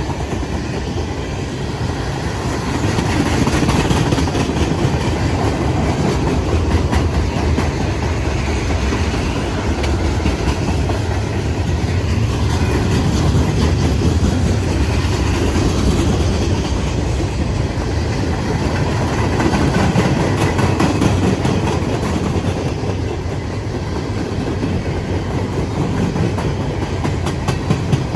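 Freight train cars rolling past, the steel wheels clicking steadily over the rail joints over a continuous rumble.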